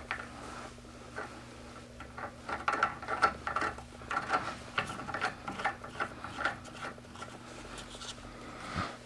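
Small metal clicks and scrapes in short irregular runs as a handle is screwed into a drill press's speed-adjustment lever by hand, with a tool turning against the metal parts. A faint steady hum lies underneath.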